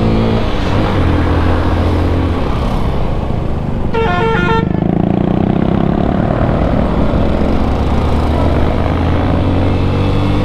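Motorcycle engine running under way, heard from the rider's seat over road and wind noise, its pitch drifting gently with the throttle. About four seconds in, a vehicle horn gives three quick beeps.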